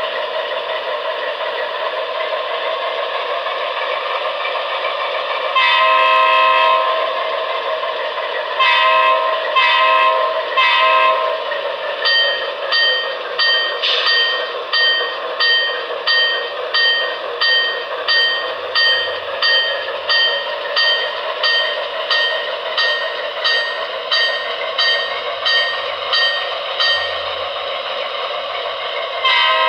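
An HO-scale RSD-15 model's DCC sound decoder plays a simulated ALCO diesel engine running steadily through the model's small speaker, with little bass. Over it the horn sounds one long blast about six seconds in, then three more a few seconds later. The locomotive bell then rings about once a second for some sixteen seconds, and the horn sounds again at the very end.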